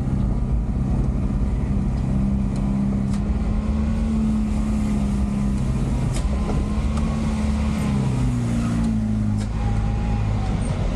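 Truck's diesel engine heard from inside the cab, running steadily under way; its pitch drops about eight seconds in as the engine slows.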